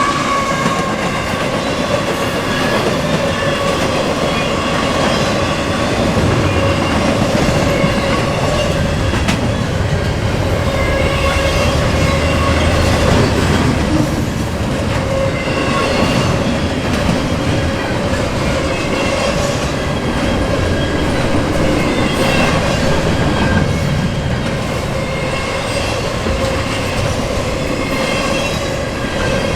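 Intermodal container freight train rolling steadily past: a continuous loud rumble and rattle of wheels over the rails, with clickety-clack from rail joints and a steady whining squeal from the wheels.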